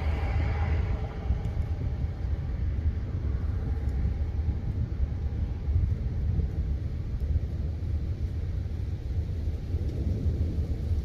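Thunder rumbling low and continuously. It is brighter at the start and dies down over the first couple of seconds into a long rolling rumble.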